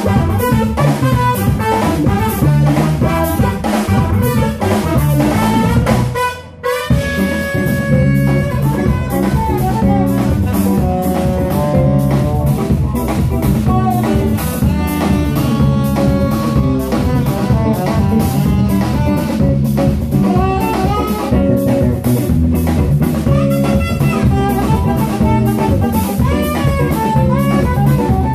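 Live instrumental jazz-funk band playing: saxophones and trumpet over drum kit, electric guitar and bass. The music breaks off briefly about six seconds in, then the band comes back in with held horn notes.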